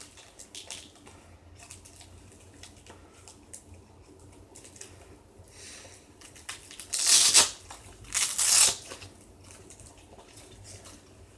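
A leg holster's straps and belt being handled: faint fabric rustling and fiddling, with two loud tearing rips about a second apart past the middle.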